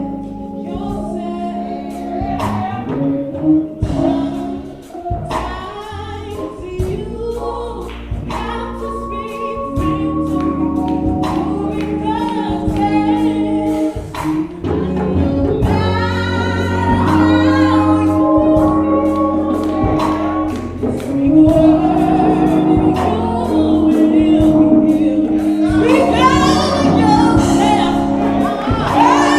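A gospel song: voices sing with a choir over long held chords and a steady beat.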